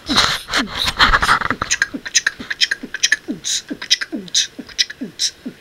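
A person making rhythmic beatbox-like mouth noises: short falling squeaks with breathy clicks, about two or three a second, after a brief rustle at the start.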